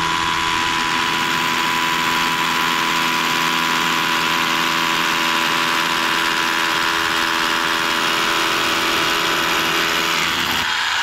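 DeWalt DCH172 cordless rotary hammer drilling into solid concrete with a masonry bit. It runs steadily under load, and the motor's whine sits over the hammering. It stops right at the end.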